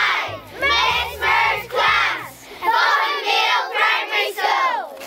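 A group of young children singing together in short phrases, over a backing track that drops out a little under three seconds in, after which the voices go on alone.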